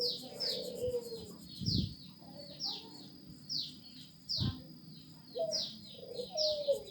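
Birds calling: a run of short, high, falling chirps repeating about once or twice a second, with lower cooing calls among them. There are two dull knocks, one about two seconds in and one about four and a half seconds in.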